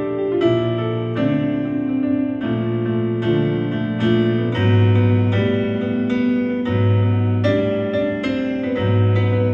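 Piano playing a slow passage of full chords over deep bass notes, each new chord struck about every half second to a second and left ringing.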